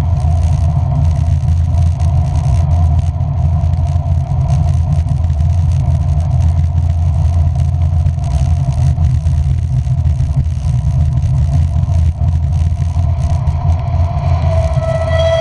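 Steady low rumble of a moving road vehicle, heard while riding. A brief pitched tone sounds near the end.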